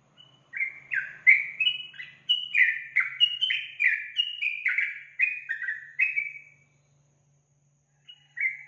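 Yellow-vented bulbul (trucukan) singing a long, fast run of short, bubbly, downward-sweeping chirps, about three a second, then pausing and starting a new phrase near the end.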